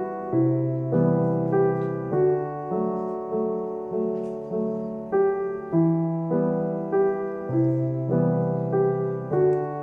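Gentle background piano music, with chords and notes struck about twice a second.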